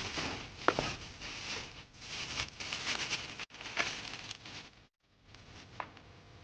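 Rustling and handling of packaging, with a few sharp clicks, as a camera kit is unboxed. The sound cuts out abruptly twice.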